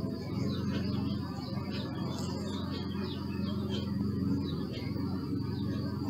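Honeybee buzzing, a steady low hum that dips briefly about four and a half seconds in, with faint short high chirps in the background.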